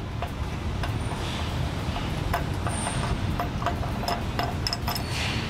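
Light metallic clicks and taps of a washer and nut being fitted onto the threaded end of a boat lift's winch cable, over a steady low rumble.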